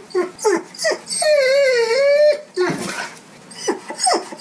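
Dog whining and whimpering: a few short falling yelps, then a long wavering whine about a second in, a breathy sniff-like sound, and more short falling yelps near the end.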